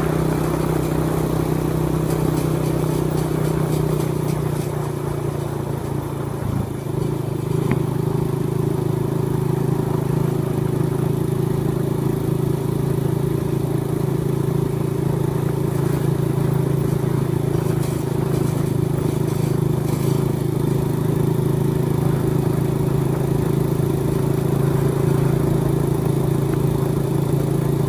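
Vehicle engine running steadily while driving, a steady drone whose pitch steps up about six or seven seconds in.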